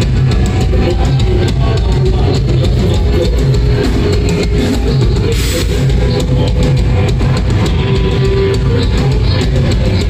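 Live rock band playing loud, with a pounding drum kit and guitar, heard from within the crowd in a club.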